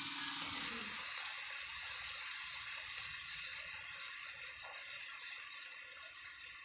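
Scad fish and pineapple chunks sizzling in a frying pan: a steady hiss, stronger for the first second, then softer and slowly fading, with a faint steady hum underneath.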